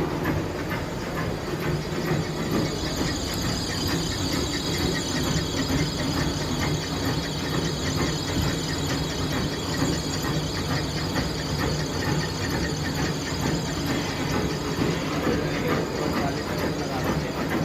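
Milling head on a planing machine running through a facing cut: a steady, dense mechanical clatter. A high thin whine rides over it from a few seconds in until a few seconds before the end.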